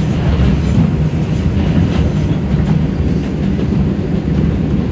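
A New York City 4 train subway car running along elevated track, heard from inside the car: a steady low rumble of steel wheels on the rails.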